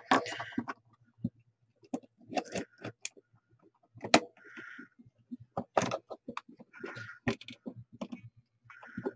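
Hard resin parts of a ball-jointed doll clicking and knocking as its jointed hands are worked off and handled, with light rubbing and rustle between the irregular clicks.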